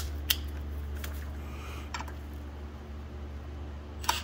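A few sharp metal clicks as a socket on an extension is handled and seated on a bolt head, over a steady low hum.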